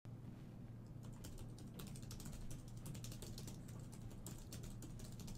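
Faint typing on a computer keyboard: quick, irregular key clicks over a low steady hum.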